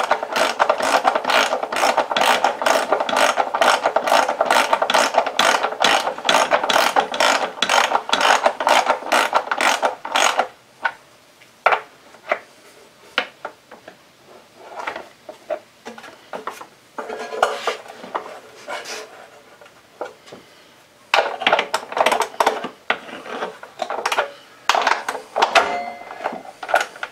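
Hand ratchet wrench clicking steadily, about four clicks a second, as a fastener is run in; it stops about ten seconds in, giving way to scattered taps and tool handling, then more bursts of ratcheting about twenty-one to twenty-five seconds in.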